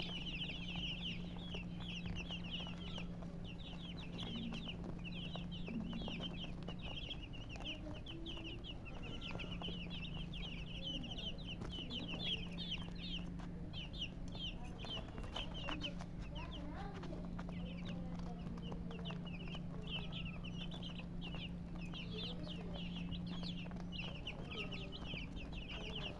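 Chicks chirping continuously in a dense chorus of rapid high peeps, with a hen clucking low now and then. A steady low hum runs underneath.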